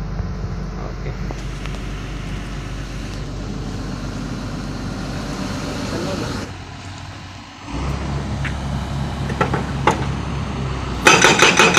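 An excavator's diesel engine runs steadily. About a second before the end, a hydraulic breaker hammer starts firing in a rapid, even series of loud blows, several a second, on its test run after its nitrogen charge was set.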